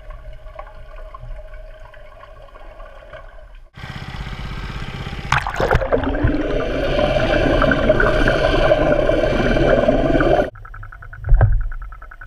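Boat motor and propeller heard underwater: a steady whine, then from about four seconds in a loud churning of prop wash and bubbles that drops back to a steady whine about ten seconds in, with a thump near the end.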